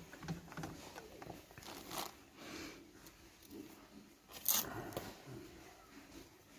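Faint rustling and crackling of electrical tape being pulled off the roll and wrapped around a wire, with a sharper crackle about four and a half seconds in.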